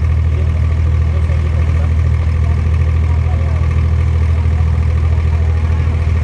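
Abra water taxi's inboard diesel engine running steadily while under way, a loud, even low drone.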